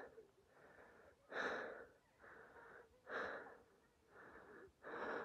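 A person breathing hard, out of breath from a steep uphill walk in snow: softer breaths alternate with louder ones, about one breath cycle every two seconds.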